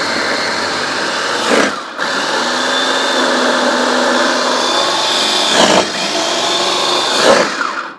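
Electric mini food chopper with a glass bowl running at speed as it chops frozen peas. It stops for a moment just before two seconds in, runs again, and cuts off near the end.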